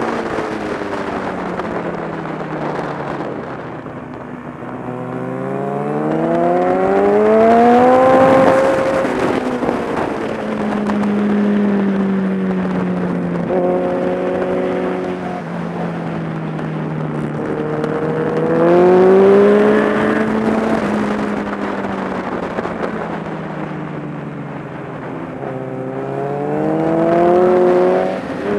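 Kawasaki ZX-10R's inline-four engine heard from on the bike at track speed. The pitch drops as it slows for corners and rises hard as it accelerates out: it climbs about five seconds in, again around eighteen seconds, and again near the end. Wind noise runs underneath.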